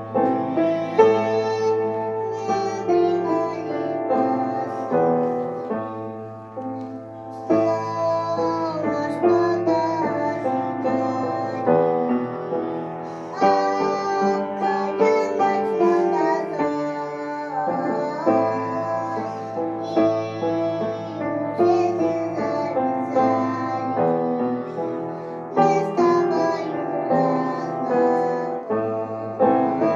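A song: a high voice singing over keyboard accompaniment, with a held low bass note under much of it.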